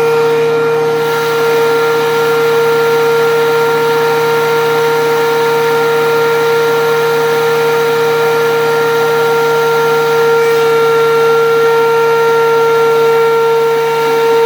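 DeWalt DW735 13-inch thickness planer running with a loud, steady high whine, taking a light finish cut of about 1/16 inch through a red oak board.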